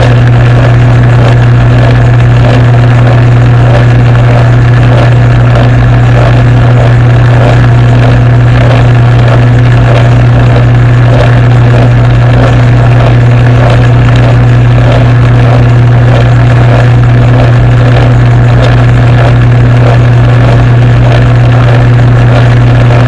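Metal lathe running with its four-jaw chuck spinning while a large twist drill in the tailstock feeds into the workpiece. The motor gives a loud, steady hum, with a faint, even pulsing above it.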